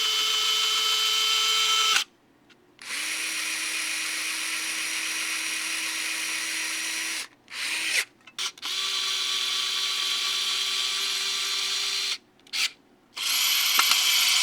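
Small cordless electric screwdrivers (Vessel Premium, TAKAGI Earth Man, Panasonic EXENA, SKIL Twist 2.0) running one after another in four main runs of a few seconds each, with short pauses and brief blips between them. Each gives a steady motor whine at its own pitch, the first run the highest, showing their different speeds.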